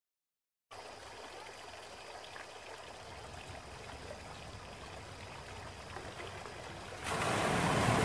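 A faint steady hiss, then about seven seconds in a sudden loud rush of water as the front of a wadi flash flood arrives and muddy floodwater pours over the edge of a concrete slab.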